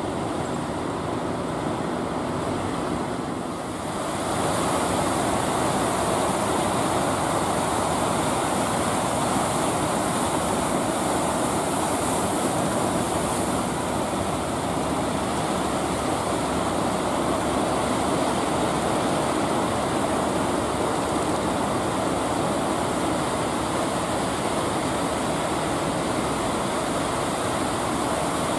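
Ocean surf breaking and washing in, a steady rushing noise that grows louder about four seconds in. A faint boat engine hum sits under it at the start.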